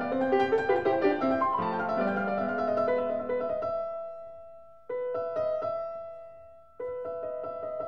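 Background piano music, a run of notes that fades out halfway through and then starts again abruptly twice.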